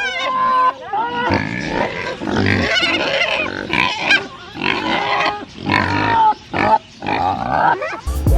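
Pigs grunting and calling, a run of calls one after another with short breaks between them.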